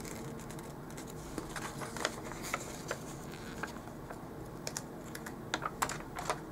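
Paper sticker sheets being handled: scattered light clicks and rustles as stickers are peeled from the sheet and pressed onto a planner page.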